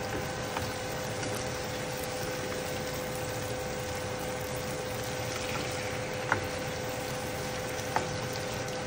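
Canned mackerel, onions and vegetables sizzling steadily in oil in a non-stick frying pan, over a steady hum. A plastic spatula taps against the pan twice, a little after six seconds in and again about eight seconds in.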